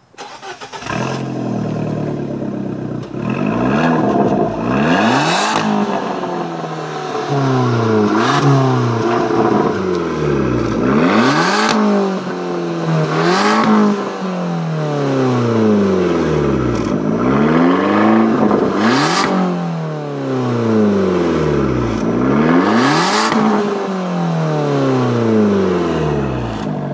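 Fiat 500 Abarth's turbocharged 1.4 four-cylinder, heard at the tailpipes of its Magneti Marelli sport exhaust, starting up and then being revved repeatedly while standing. The revs swing up and fall back every second or two, with a sharp crack at several of the peaks.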